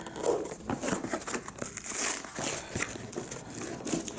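A cardboard box being torn open by hand: tape and paper facing ripping off the cardboard, with irregular crackling and crinkling that is loudest about two seconds in.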